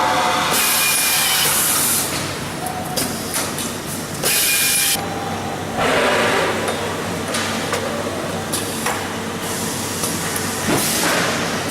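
AF10 frame machining centre at work: repeated bursts of hiss, like compressed air being released, and a motor whine that falls and then rises again a little past the middle, over a steady machine hum.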